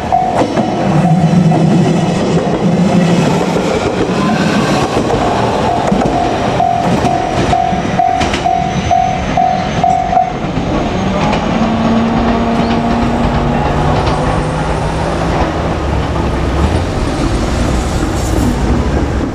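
Japanese level crossing warning bell ringing in a quick, even pulse of about two beats a second over the noise of a passing train, its wheels clacking over rail joints. The bell stops about ten seconds in, leaving a low, steady hum.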